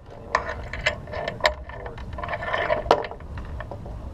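Sailboat winch ratchet clicking: a handful of sharp, irregular metallic clicks.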